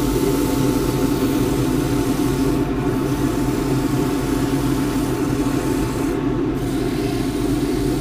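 Wood lathe running at a steady speed, its motor hum constant, while abrasive paper held by hand is pressed against the spinning green casuarina bowl. A high hiss runs over the hum and dips briefly twice.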